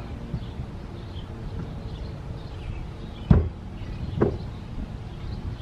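Two sharp knocks about a second apart, the first louder, over a steady low rumble.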